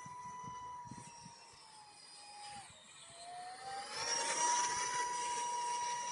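Electric ducted fan of a small RC XF-85 Goblin model plane whining steadily. Its pitch sags about halfway through, then climbs back. About four seconds in the whine grows loudest, with a rushing hiss, as the plane passes close.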